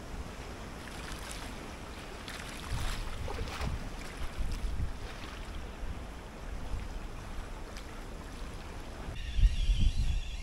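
Wind gusting on the microphone, with light rustling and handling noises. About nine seconds in, the gusts get stronger and a faint wavering high whistle comes in.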